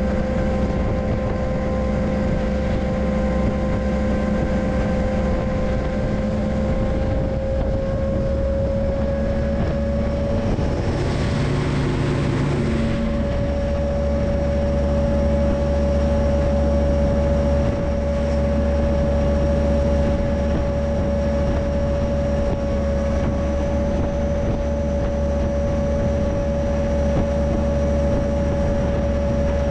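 Freight train locomotive running along the line: a steady drone with a continuous whine and a low hum, and a brief rushing noise about eleven seconds in.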